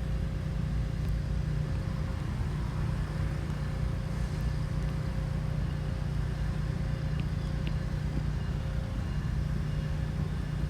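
Steady low rumble of city vehicle traffic, with a faint steady hum above it.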